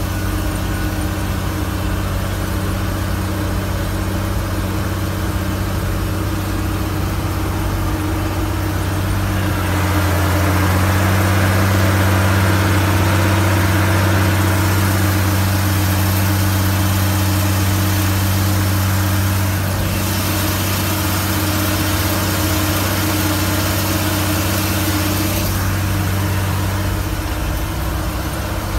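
Tractor engine running steadily under way, heard from inside the cab as a low, even hum. It grows a little louder for a stretch in the middle.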